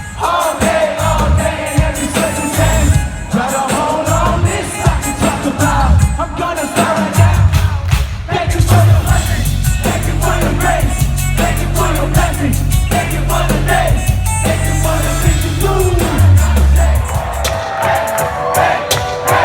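Live worship rock band playing with drums, bass and lead vocals, heard loud through a phone microphone, with the crowd singing along. A heavy sustained bass comes in about seven seconds in.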